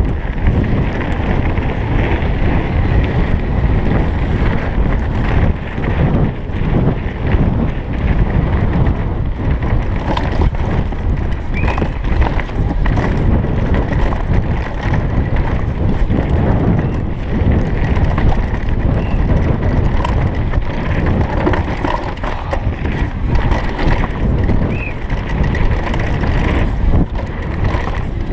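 Downhill mountain bike (GT Fury) descending fast over gravel and dirt: tyres rolling on loose ground and frequent knocks and rattles from the bike over bumps, under heavy wind rush on the action camera's microphone.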